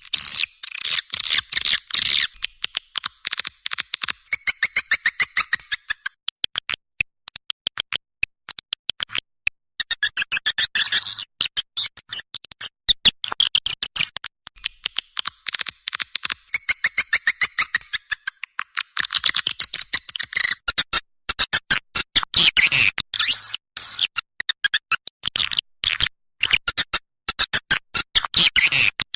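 Swiftlet calls: fast trains of high twittering chirps and clicks, in bursts with short breaks. This is a recorded calling track of the kind played to lure swiftlets into a nesting house.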